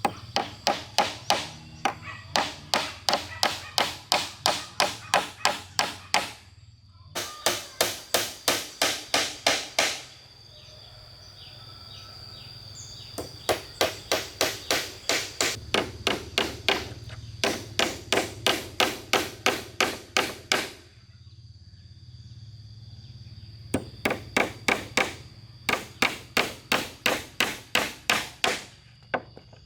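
Rapid, regular blows of a hammer or mallet on wood, about four a second, in six runs of a few seconds each with short pauses between. A steady high insect drone runs underneath.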